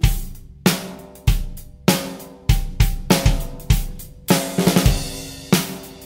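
Drum kit playing a steady groove on a 7x14 heart pine and maple stave snare drum, with bass drum and cymbals: sharp strokes about every 0.6 s and a quick run of hits a little before the end.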